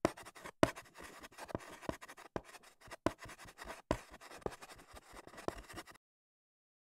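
Chalk scratching and tapping on a blackboard as a word is written out in quick, irregular strokes, stopping abruptly about six seconds in.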